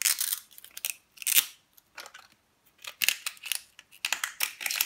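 Plastic wrapper of an LOL Surprise ball being picked at and peeled open by hand. It gives irregular short crinkling, tearing rasps in clusters about a second apart, the busiest near the end.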